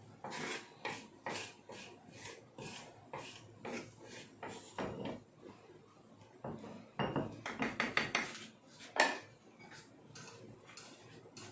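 Kitchen utensils scraping and clinking against metal bowls and a cooking pot as ground spice paste is scraped into the pot: a run of scrapes about twice a second, then a quicker cluster of clinks and a single louder knock near the end.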